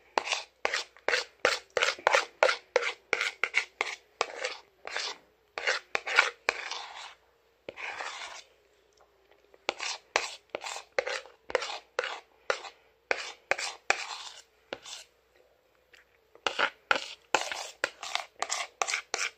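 A spoon scraping quickly against a bowl of Fruche dessert, in runs of short strokes about four or five a second broken by brief pauses, as the dessert is scooped out and eaten.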